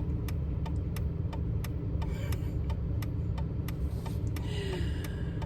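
Inside a car with the engine idling, a steady low rumble, and the turn-signal/hazard indicator relay ticking evenly about three times a second.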